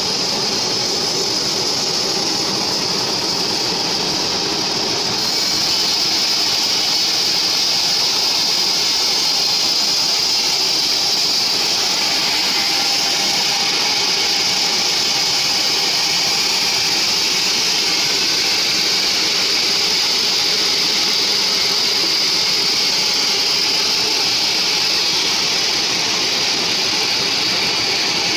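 Large band sawmill running, its blade sawing lengthwise through a mahogany log in a steady, loud, hissing whine with a low motor hum beneath. It grows slightly louder a few seconds in.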